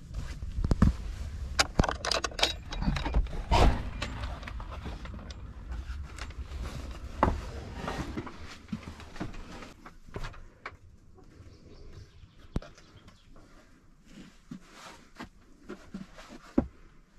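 Footsteps, knocks and rustling as a person goes in through the wooden plank door of a log dugout, busiest and loudest in the first few seconds over a low rumble, then fainter scattered clicks and creaks inside.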